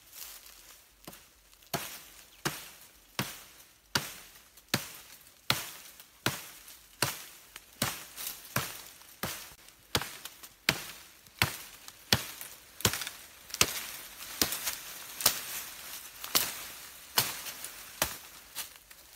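A knife chopping at a thin woody stem: steady, sharp blows about one every three-quarters of a second, some much louder than others.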